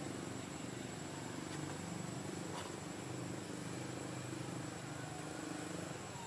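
Steady background noise: a low rumble with a thin, steady high-pitched whine above it and a faint click or two. No monkey cry is heard.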